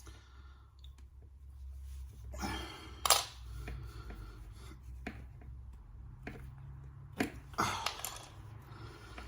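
Hands working a network cable and a plastic Ethernet jack: scattered clicks and rustles, with one sharp snap about three seconds in and a few more clicks near the end, over a low steady hum.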